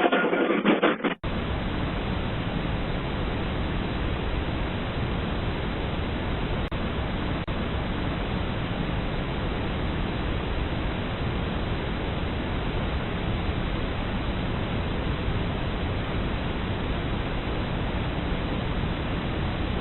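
A steady, even rush of noise with no distinct events, cutting in abruptly about a second in and holding level throughout.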